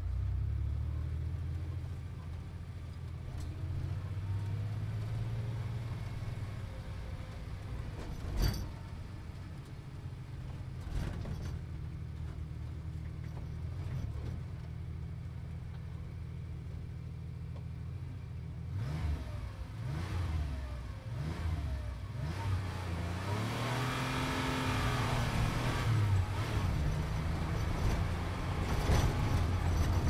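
Sports car engine running while driving, a steady low engine note for the first two-thirds, with a single sharp knock about a third of the way in. In the last third the revs climb and fall several times and the car grows louder, with more rushing road and wind noise.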